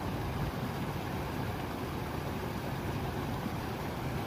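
Fast river current rushing and churning around a rock in a steady, even hiss.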